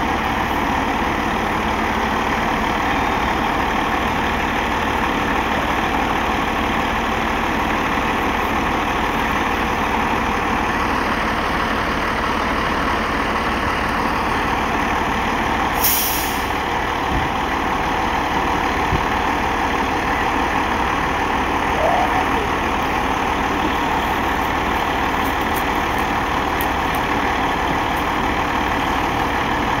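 Fire engine running with a loud, steady noise. About sixteen seconds in there is one short, sharp hiss of air brakes.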